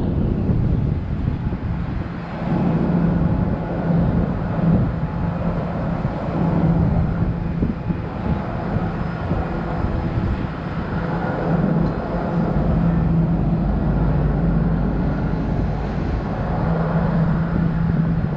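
Airport apron ambience: a steady rumble of jet airliner engines at taxi power, with a low hum that comes and goes from about two seconds in.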